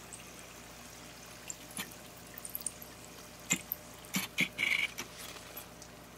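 Samosas deep-frying in hot oil with a faint steady sizzle. From about three and a half seconds in, a slotted metal spoon clinks and scrapes against the pan as the fried samosas are lifted out with oil dripping off them.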